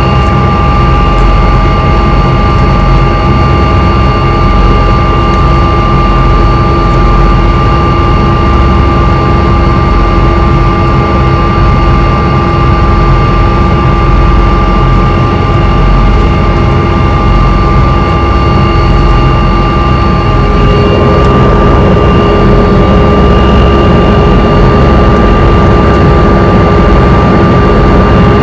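Helicopter engine and rotor noise heard from inside the passenger cabin: a loud, steady drone with several high whining tones. About 20 seconds in, the whine changes to a different pitch.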